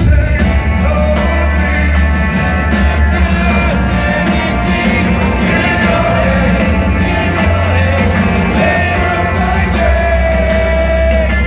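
Rock band playing live, a singer over loud band music with a heavy bass. A long sung note is held near the end.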